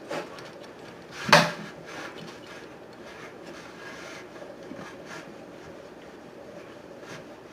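One sharp knock a little over a second in, followed by fainter knocks and quiet rubbing and handling sounds.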